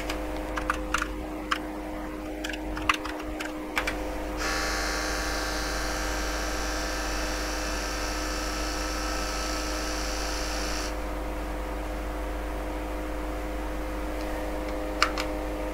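Keys clicking on the HP 9845B's keyboard, then the computer's tape cartridge drive running for about six seconds with a high whir as it reads a program off the tape, over a steady hum from the machine.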